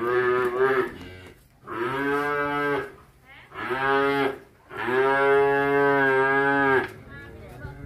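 Cattle mooing: four calls in a row, the last the longest at about two seconds.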